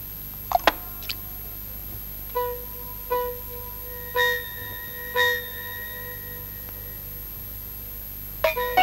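Sparse background music from a film score: after a couple of sharp clicks, a single ringing instrumental note of one pitch sounds four times, about a second apart, each dying away. Fuller instrumental music comes in near the end.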